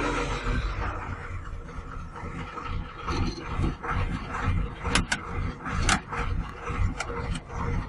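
Diesel engine of a Kato 25-tonne crane dropping from a raised speed to an uneven, lumpy idle in the first second. A few sharp clicks or clanks come about five to seven and a half seconds in.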